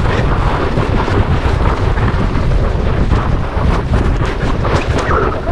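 A sled sliding fast over packed snow, its runners scraping and rumbling with frequent small bumps, under heavy wind buffeting on the microphone.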